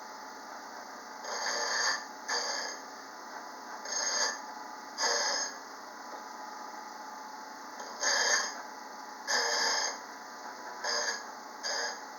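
Single-point diamond dresser scraping across the face of a spinning white aluminum oxide wheel on a low-speed bench grinder, in about eight short passes over the grinder's steady running hum. The diamond is set to take a light cut, dressing the wheel face clean and flat.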